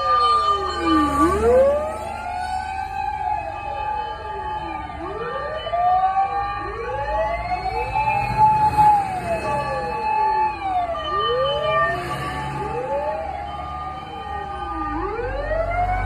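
Fire engine sirens wailing, each rising and falling in pitch about every four seconds, with more than one siren overlapping out of step.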